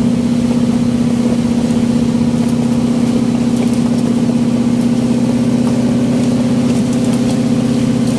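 A fishing boat's engine running steadily: a constant, even drone with a strong low hum.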